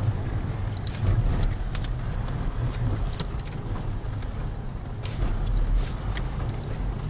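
Škoda Octavia RS heard from inside the cabin while driving on snow: a steady low engine and road rumble, with scattered sharp clicks and rattles.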